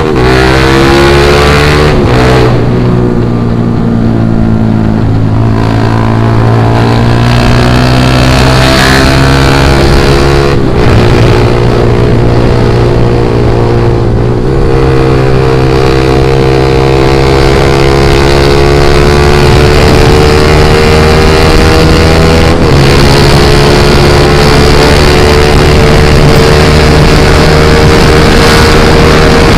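Honda Sonic 150R's single-cylinder four-stroke engine through a Proliner aftermarket exhaust, heard from the saddle while the bike is ridden and accelerated. The exhaust note rises steadily in pitch, with four short breaks where the rider shifts up a gear.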